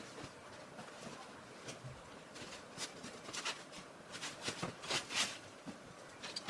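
Bedsheets being handled while a bed is changed: several short, soft rustling swishes of fabric, the loudest about five seconds in.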